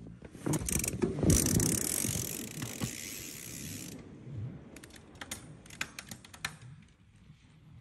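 A Salsa fat bike passing close and riding away through snow: the wide tyres crunching and the rear hub and drivetrain ratcheting and clicking, loudest about a second in and then fading, with a run of sharp clicks a little past the middle.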